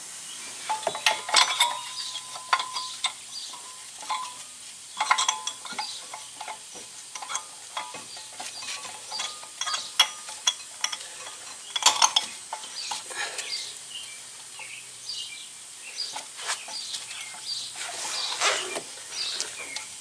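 Metal clinks and scrapes of new ceramic brake pads and their spring clips being handled and fitted into a 2014 Ford Focus front disc-brake caliper and bracket: irregular light clicks with a few sharper knocks.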